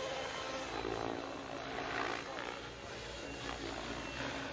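Electric RC helicopter (Thunder Tiger Raptor G4 E720) in aerobatic flight, its rotor head spun up to about 1850 RPM: a steady pitched hum from the rotor blades and motor, swelling and easing as it manoeuvres.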